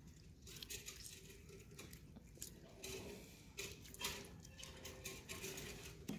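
Lemon halves squeezed by hand over a steel mesh strainer: faint wet squishing with scattered small clicks and taps throughout.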